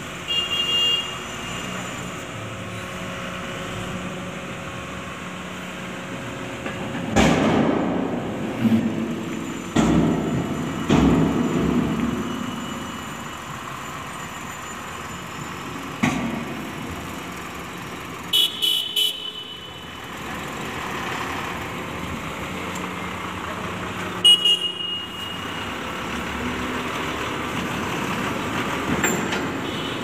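Ashok Leyland tipper truck's diesel engine running, with a run of heavy knocks and bangs about a quarter of the way in. Short high horn toots sound near the start and again around two-thirds through.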